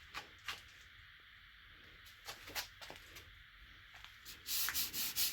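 Hand bodywork on body filler: a few light clicks and taps, then a short, scratchy scrape of a tool across the filler about four and a half seconds in.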